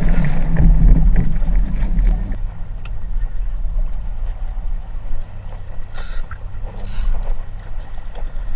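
Wind buffeting the microphone and water moving around a small sailboat under way, loud for the first two seconds and then quieter. Two short hissing bursts, like spray or splashes, come about six and seven seconds in.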